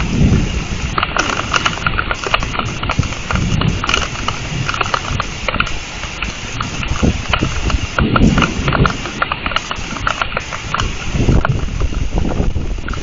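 Heavy thunderstorm rain falling steadily, with many drops clicking sharply on surfaces close to the microphone. A few low rumbles swell and fade, about four times.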